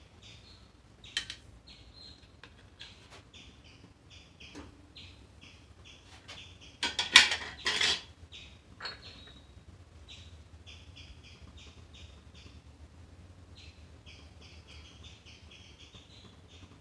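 Glass bowls and a steel spatula knocking and clinking on a kitchen counter: a few scattered knocks, with the loudest clatter about seven seconds in. A small bird chirps in quick runs of short high notes throughout.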